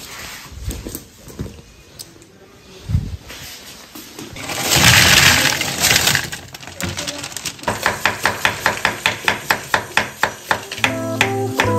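Frozen mixed seafood tipped from a bag into a plastic colander, a brief loud clattering rush. Then a chef's knife chopping an onion on a wooden board, quick even strokes about four a second, with guitar music coming in near the end.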